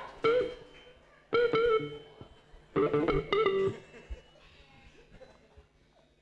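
Three short pitched musical notes, each held briefly, the last fading out about four seconds in.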